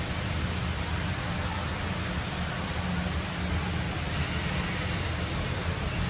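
Steady rushing noise with a fluttering low rumble underneath and no distinct events.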